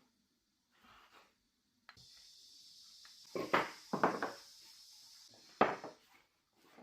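Dishes and utensils clattering, a few sharp knocks in quick succession, over a steady hiss that starts about two seconds in and stops shortly before the last clatter.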